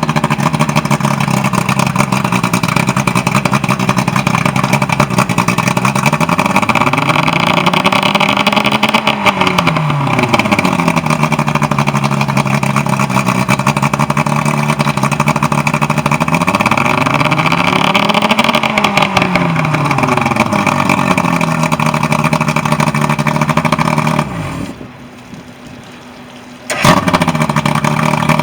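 Evinrude 120 V4 two-stroke outboard motor running at a fast idle, revved up and back down twice. The sound drops away suddenly for about two seconds near the end, then the engine sound returns.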